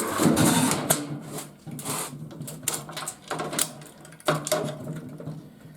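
Irregular clicks and knocks of wires and their push-on connectors being pulled off a garage door opener's terminals.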